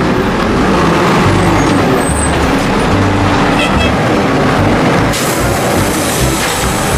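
Garbage truck engine running with a steady rumble; about five seconds in, a hiss comes in over it.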